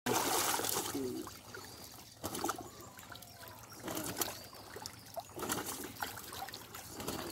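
Silver carp and other carp thrashing in shallow water inside a hauled-in seine net, sending up irregular bursts of splashing. The loudest burst comes in the first second.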